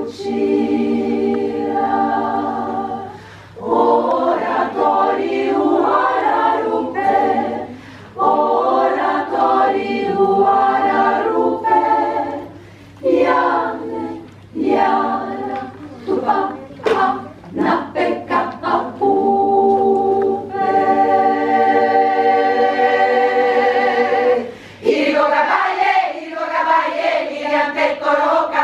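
Women's choir singing a song of Amazonian indigenous women, in phrases broken by brief pauses, with a run of short clipped notes midway and a long held chord about two-thirds through.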